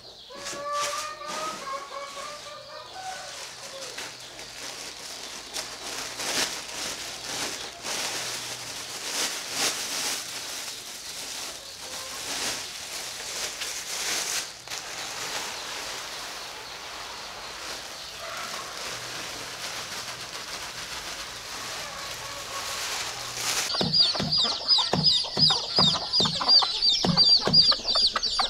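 Chickens clucking, among scattered short clicks and rustles. Near the end it grows louder: low clucks about twice a second under a rapid, high-pitched chirping.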